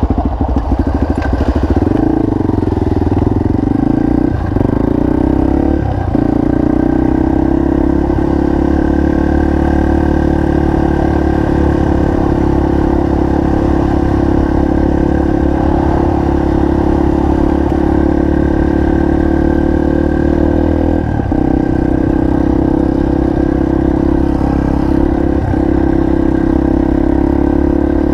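Single-cylinder four-stroke trail motorcycle engine running under steady throttle while riding, its note dipping briefly about four times.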